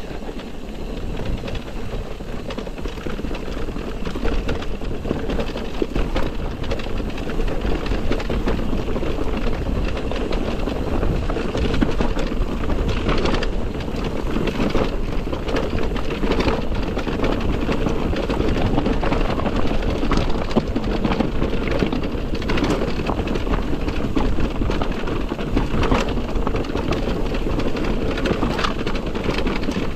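Electric mountain bike riding over a rough, stony trail: a continuous rush of tyre noise over gravel, with many small rattles and knocks from the bike.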